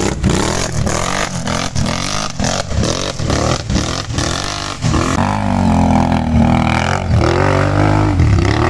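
Can-Am ATV engines revving hard on a steep dirt climb. For the first half the throttle comes in short, choppy bursts. From about five seconds in there is one long, steady full-throttle pull whose pitch rises and falls.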